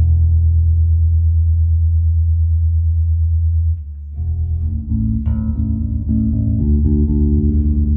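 Electric bass guitar played through a Hartke HD150 bass combo amplifier: one low note held for nearly four seconds, then after a brief dip a string of plucked notes.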